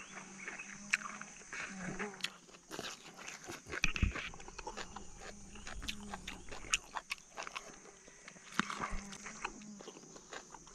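Rural outdoor ambience: a steady high insect drone, with scattered short clicks and snatches of animal sounds.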